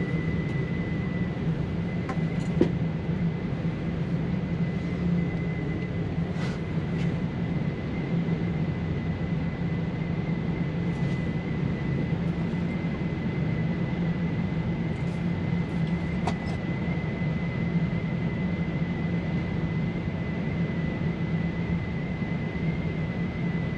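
Steady rumble of an indoor shooting range's air-handling system, with a thin steady high tone over it and a few faint sharp knocks, the clearest about two and a half seconds in. No close rifle shot is heard.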